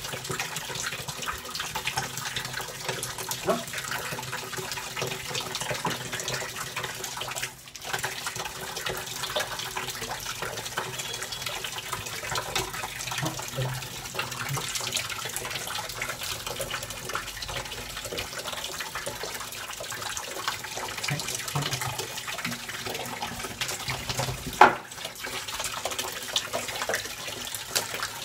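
Water running steadily from a wall tap into a plastic bucket, with splashing as a dog is scooped over and washed with a mug. One sharp knock near the end is the loudest sound.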